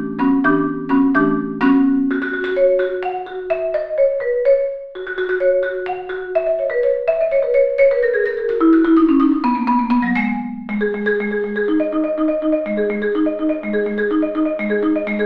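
Saito marimba played solo with four mallets: struck and rolled chords, then a run of notes falling stepwise in pitch, and from about two-thirds of the way through a steady repeating pattern of low and middle notes.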